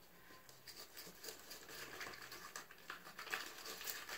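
Faint, irregular sticky clicks and crackles of freshly activated slime, jelly-like and still tacky, being worked and squished.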